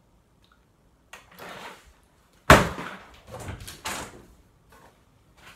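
A person getting up from a table and walking off: scuffling movement noise, with one sharp, loud knock about two and a half seconds in and more shuffling after it.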